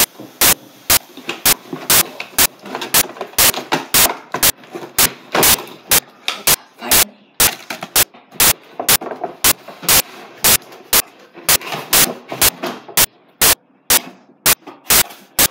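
Loud, sharp clicks repeating at an even pace of about two a second, over a rustling, crackling noise.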